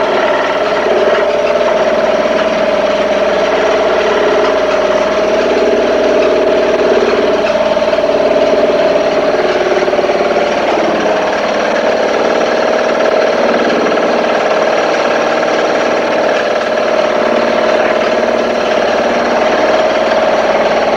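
Papp two-cylinder noble gas engine running steadily at a constant speed, with a strong steady tone that does not change.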